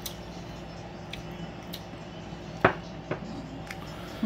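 A glass beer mug set down on a glass tabletop with one sharp clink a little past halfway, among a few faint taps, over a steady low hum.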